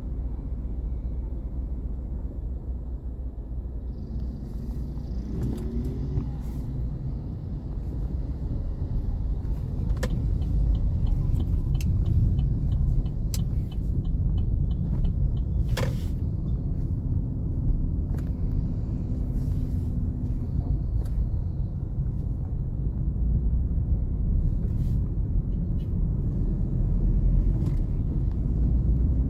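Cabin rumble of a moving Chevrolet Onix turbo, with scattered sharp knocks from the suspension over uneven pavement. The knocks are the suspension noise the owner is taking to the dealership, and they are clearest in the middle of the stretch.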